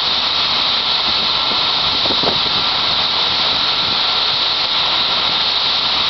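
Farm machinery running steadily as a grain cart auger pours shelled corn into a Loftness grain bag loader's hopper, with tractor engines under a loud, even hiss and a faint steady whine.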